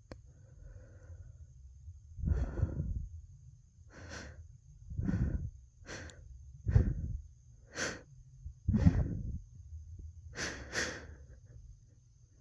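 A person with hayfever breathing heavily and unevenly right against the microphone: about nine short, sharp breaths, starting about two seconds in, as another sneeze builds.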